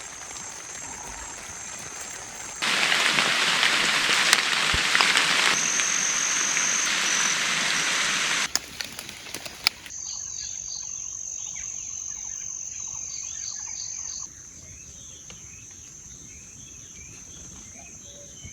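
Forest ambience in abrupt segments: a few seconds of heavy rain falling, the loudest part, then a steady high insect trill like crickets with scattered bird chirps, which drops in level about two thirds of the way through.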